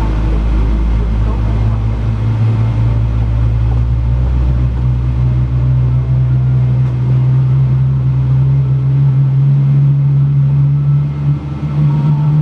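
Boeing 777-300ER's GE90-115B turbofan spooling up during engine start, heard through the cabin: a low hum that rises slowly and steadily in pitch over a deep rumble.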